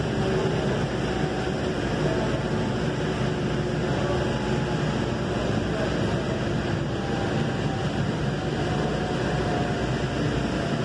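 Steady running noise inside a moving light-rail car, with a faint whine that shifts slightly in pitch.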